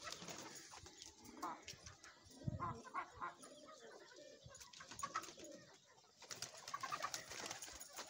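Faint, scattered calls of domestic pigeons and chickens, with pigeons cooing among them.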